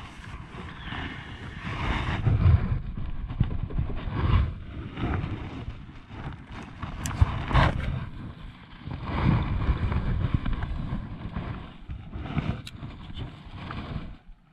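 Wind buffeting the camera microphone, rising and falling in gusts, with a couple of sharp clicks.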